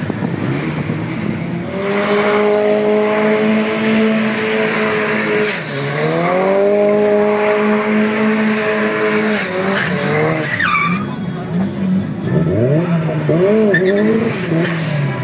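Volvo 945 turbo doing a burnout: the engine is held at high revs in two long steady pulls with a short dip about six seconds in, while the spinning rear tyres screech. About ten seconds in the screech stops and the revs drop, then the engine revs up and down in short blips.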